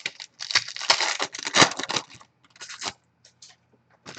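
Trading card pack wrapper being torn open and crinkled, a loud rustling rip for about two seconds, then shorter crinkles.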